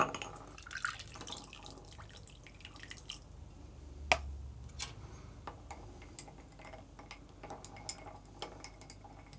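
Flash-brewed coffee poured from a glass carafe over ice into a glass tumbler, then stirred with a spoon: faint trickling and scattered small clinks of ice and spoon against the glass.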